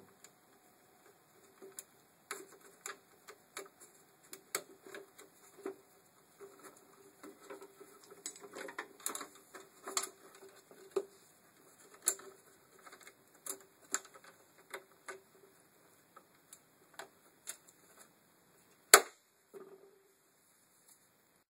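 Irregular clicks and taps of plastic and metal parts being handled: window regulator cables, clips and sliders being fitted on a VW Passat B5 front door carrier panel. One sharp, much louder click comes near the end.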